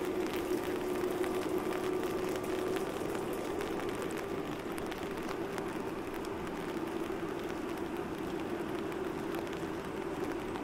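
Steady rain, with raindrops ticking on an umbrella held overhead. A steady low hum sounds alongside and stops about three seconds in.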